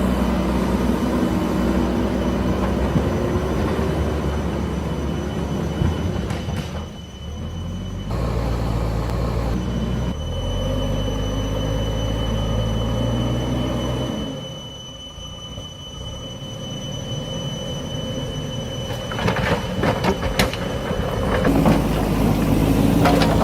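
JCB backhoe loader's diesel engine running and revving up and down as it works, with a thin steady high whine through much of it. Near the end comes a string of sharp clanks and scrapes.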